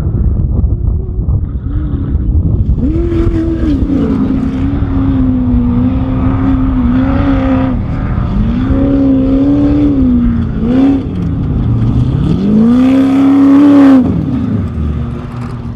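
Off-road race vehicle's engine running hard, its pitch repeatedly rising and falling as the throttle is worked, over a heavy low rumble. Near the end it holds one long high rev, then the sound cuts off suddenly.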